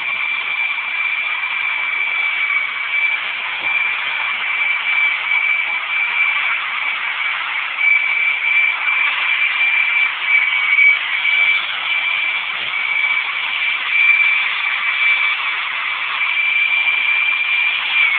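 Electric angle grinder fitted with a polishing pad, running with a steady high whine as it polishes the edge of a plain glass sheet, the pitch dipping slightly now and then. Near the end the whine drops in pitch as the tool winds down.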